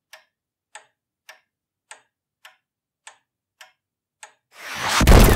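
Time-bomb sound effect: a clock ticking eight times, a little under twice a second, then near the end a swelling rush into a loud explosion that is still dying away.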